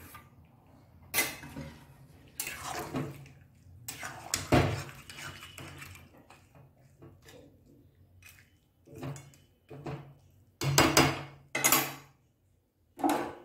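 Spatula stirring and scraping through a thick prawn-and-jackfruit curry in a metal kadai, knocking against the pan in short, irregular bursts.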